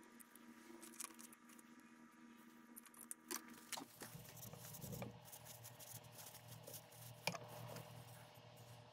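Faint bench-handling sounds: a few light clicks and taps as a wooden scabbard and a small black G10 knob are handled and set down on a workbench. A low steady hum comes in about four seconds in.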